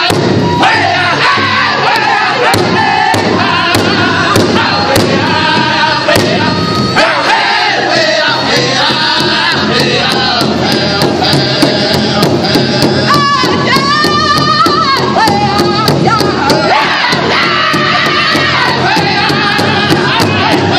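Powwow drum group: several men singing together over a large shared drum, which they strike in unison with drumsticks in a steady beat.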